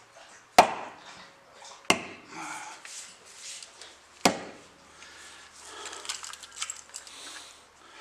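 An axe bit struck into a wooden stump three times, each a sharp, loud knock: about half a second in, near two seconds, and just past four seconds. Softer knocks and clicks follow as the axe is handled.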